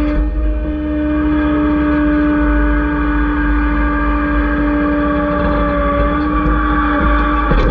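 Excavator's diesel engine running with a steady whining tone as the boom and bucket dig a ditch, with a sharp clunk near the end.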